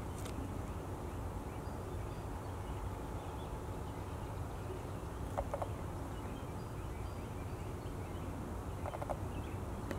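Steady low rumble with faint bird calls over it: two short rattling calls about five and nine seconds in, and a few thin high chirps.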